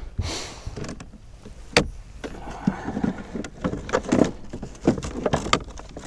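Handling noises of someone rummaging in a fishing boat's console storage compartment: a sharp click a little under two seconds in, then a run of short knocks and clicks, after a brief rush of noise near the start.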